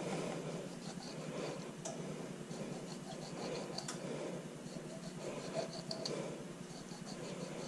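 Knife blade scoring slits into the side of a whole lake trout on a plastic cutting board: soft, continuous scratching and slicing through the skin.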